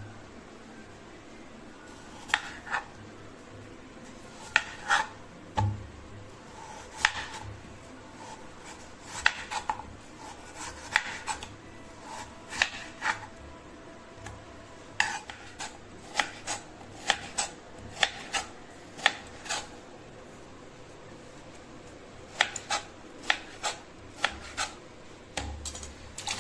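Large kitchen knife cutting a raw potato on a wooden chopping board: a series of sharp knocks as the blade goes through and strikes the board, in short runs of strokes with pauses between.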